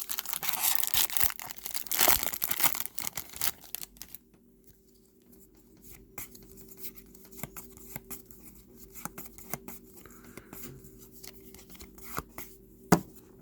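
Trading card pack wrapper torn open, crinkling loudly for about the first four seconds. Then quieter ticks and rustles of the cards being handled, with one sharp click near the end.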